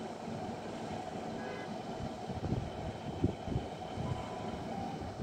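Class 153 diesel railcar running slowly into the platform, a steady diesel-and-rail rumble. A few low thumps come about two to three and a half seconds in.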